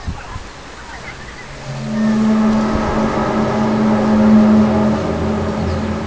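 A loud, steady droning hum from the sky, of the kind reported as a 'strange sky sound', starts about two seconds in over faint wind noise. It holds on several steady tones stacked one above another, swelling a little toward the middle.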